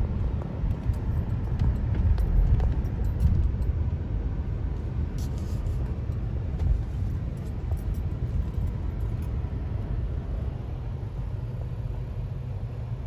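Cars driving at low speed: a steady low rumble of engine and road noise heard from inside a moving car, slowly growing quieter.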